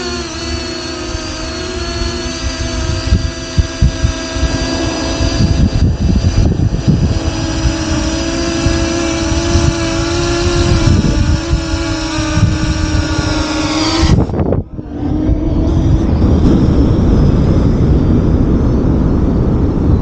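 Parrot Anafi quadcopter hovering close by: a steady multi-toned whine from its propellers with slight wavers in pitch, over low wind rumble on the microphone. About fourteen seconds in the whine cuts off abruptly, leaving mainly wind rumble.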